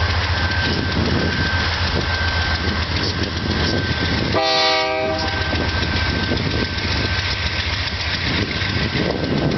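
BNSF double-stack freight train running past behind GE C44-9W diesel locomotives, with a steady rumble of engines and wheels on the rails and a thin steady high whine. About halfway through, a brief horn blast of under a second.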